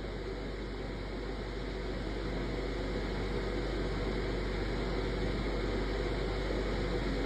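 Steady background noise with a constant low hum, with no sudden sounds.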